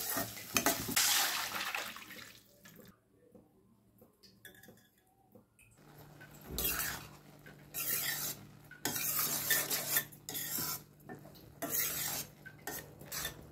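Cooking sounds: a sizzling haze at first that fades out, then from about halfway through irregular clinks and scrapes of metal utensils against a pan and dishes, over a low steady hum.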